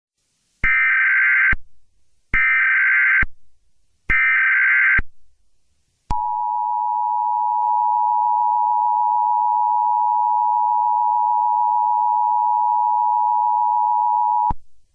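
Emergency Alert System header: three short bursts of SAME data tones, each about a second long with brief gaps, then the two-tone EAS attention signal held steady for about eight seconds before cutting off. It marks the start of a new emergency alert, here a civil danger warning.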